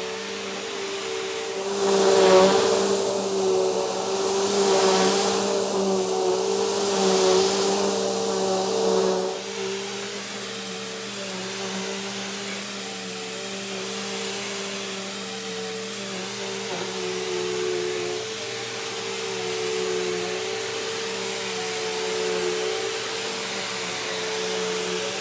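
Bissell Powerforce Turbo upright vacuum running with a steady motor whine. For the first several seconds a louder rush of air swells and fades three times over the motor, then the vacuum settles into a steady run.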